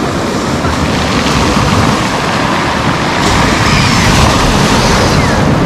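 Sea surf breaking and washing up a pebble beach, a steady loud rush of water.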